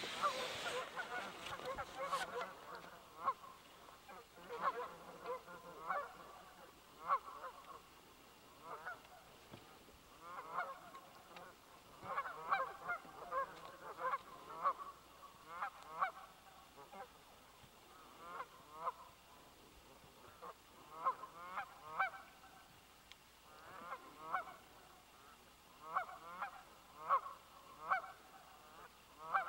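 A flock of Canada geese honking: many short calls in irregular runs, often several overlapping, with brief lulls between.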